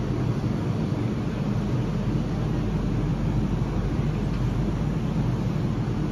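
Changi Airport Skytrain people-mover car at the platform, giving a steady low hum and rumble.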